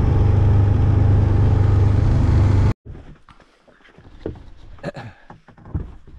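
Motorboat under way: the engine's steady drone under rushing water and wind. It cuts off abruptly about two and a half seconds in, leaving quieter water with scattered light knocks.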